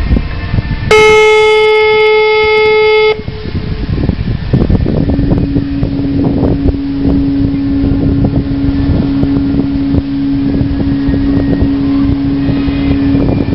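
Ship's horn sounding one loud blast about two seconds long that cuts off sharply, over steady wind and engine rumble. A lower, quieter steady tone sets in a few seconds later and holds.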